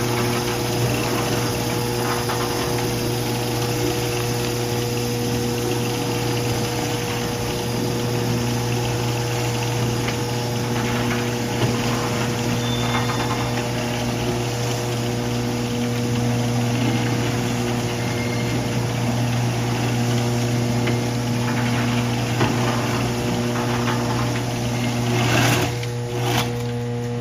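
Lantech Q300 stretch wrapper running, its electric drive humming steadily. A second motor tone cuts in and out every few seconds, and there are a few clunks near the end.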